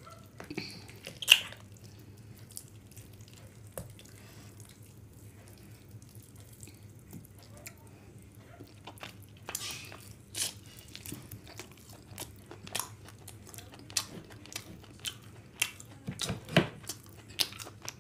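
Close-miked hand-eating of a whole chicken curry: wet clicks and smacks of meat being pulled apart with the fingers, bitten and chewed. There is one sharp click about a second in, and the clicks come thicker and louder in the second half.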